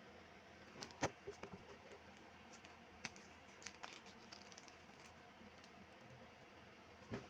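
Faint, scattered clicks and light knocks of plastic standing-fan parts being handled and fitted during assembly, the sharpest about a second in.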